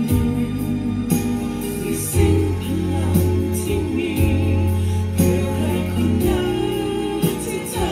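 Music from a staged light-and-sound show: a voice singing over sustained instrumental tones and a beat.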